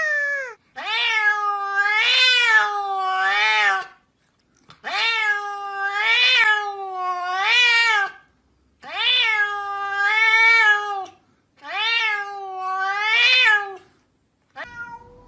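Domestic cat meowing: long, drawn-out meows that rise and fall in pitch, in four bursts of three or four calls each, with short pauses between bursts.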